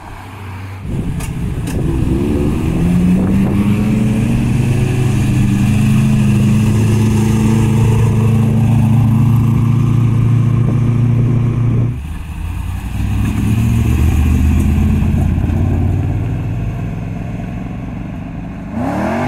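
Classic cars' engines pulling away one after another: one engine's pitch rises over the first few seconds and then holds steady for several seconds, breaks off suddenly, and a second engine follows and slowly fades; another engine revs up right at the end.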